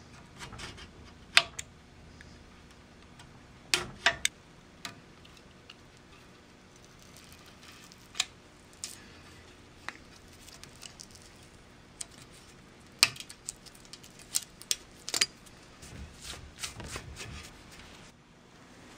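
Snap-off utility knife and steel rule clicking and scraping against a steel fence rail as the stick-on measuring tape is trimmed at its end: irregular sharp clicks, sometimes in quick pairs, a second or more apart.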